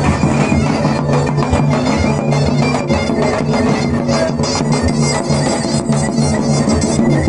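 Davul and zurna playing a fast horon dance tune: rapid drum strokes under the reed melody.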